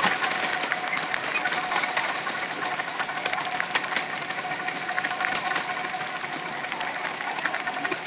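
7¼ inch gauge miniature steam locomotive running along the track, heard from the car behind it: a steady hiss with a steady tone, and irregular clicks and rattles throughout.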